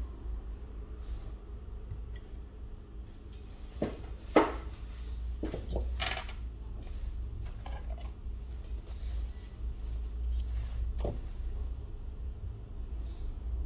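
Light clicks and taps of small hard parts and tools being handled during smartphone repair, the loudest a little past four seconds in, over a steady low hum.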